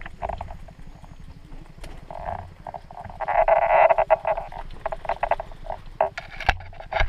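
Frogs croaking: many short calls repeat, thickening into a louder, continuous run of calls about three seconds in. A couple of sharp knocks come near the end.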